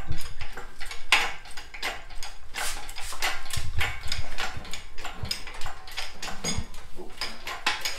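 Irregular knocks and clanks, a few each second, with some dull thuds, from hands-on repair work on a Willys Jeep.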